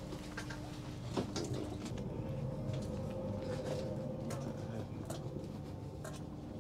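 Steady hum of a passenger train carriage's onboard systems, with scattered light clicks and knocks.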